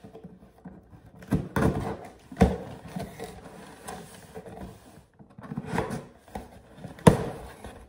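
Cardboard shipping box being opened and handled: irregular scrapes and knocks as the flaps are pulled up, with rustling as hands reach inside, and a sharp knock near the end.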